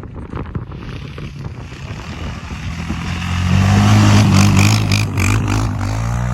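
Honda TRX700XX quad's single-cylinder engine running, growing louder until a steady low drone sets in about halfway through.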